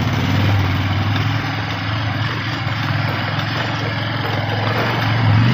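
Motorcycle engine running steadily, a low hum heard from on the bike, growing a little louder near the end.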